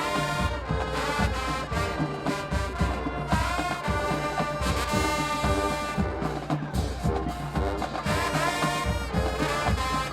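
A marching band playing, led by brass (trombones and trumpets) over a steady drumline beat.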